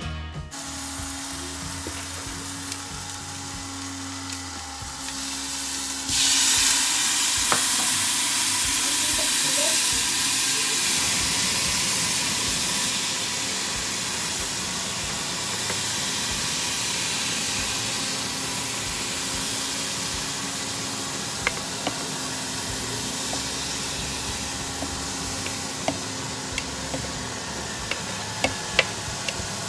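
Food frying and sizzling in a hot automatic stirring pot. About six seconds in the sizzle jumps suddenly louder, then eases off gradually. Near the end there are a few light clicks of a spoon scraping corn off a plate into the pot.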